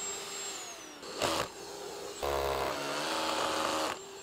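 Makita cordless SDS rotary hammer fitted with a clip-on dust extractor, drilling into a brick wall. The motor runs and winds down, gives a short burst about a second in, then drills into the brick for about two seconds in the second half, the extractor fan's hum running with the hammering.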